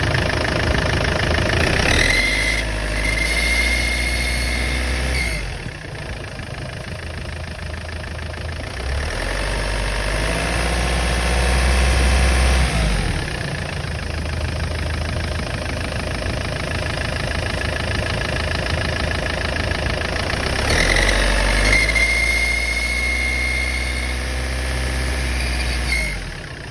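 Turbocharged engine idling and being revved three times. During two of the revs a high, steady whistle comes in and holds, then drops away as the revs fall. The owner calls it an unexplained turbo whistle.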